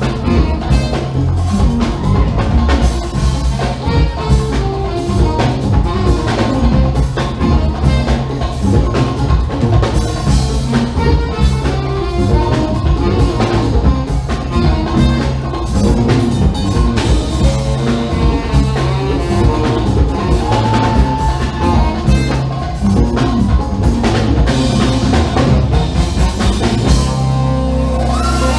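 Live funk band playing: tenor saxophone, electric guitar, bass guitar, drum kit and hand percussion, with busy drumming over a driving bass line. The drum hits thin out near the end.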